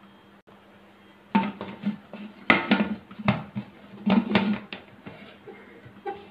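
Pressure cooker's metal lid and weight clanking and scraping as the weight is fitted onto the steam vent: several short clusters of metallic clinks with brief ringing, spread over a few seconds.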